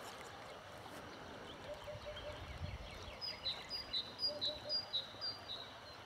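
Faint birdsong over a quiet outdoor background: a bird repeats short high chirps about twice a second through the second half, and short runs of three or four low hooting notes come twice. A brief low rumble sounds near the middle.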